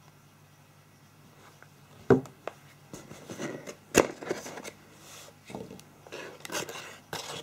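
Handling noises from a phone and its cardboard box: quiet at first, then a knock about two seconds in and a sharp click about four seconds in, with rustling of cardboard and paper as a hand works inside the box toward the end.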